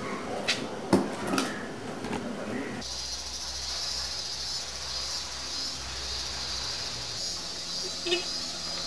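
A few sharp clinks of tableware at a café table. Then, from about three seconds in, a steady high-pitched chorus of summer insects over a low hum, with one small click near the end.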